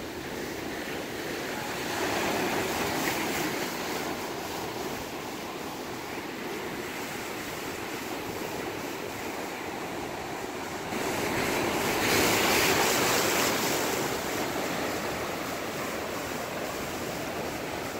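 Sea surf breaking and washing over rocks: a steady rush of water that swells about two seconds in and again, loudest, around eleven to fourteen seconds in.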